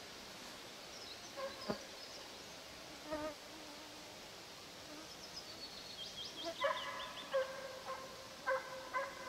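Faint baying of Russian hounds giving voice while running a scent trail: a short bout early on and a run of repeated yelps in the second half. A bird's quick descending run of high notes overlaps the middle.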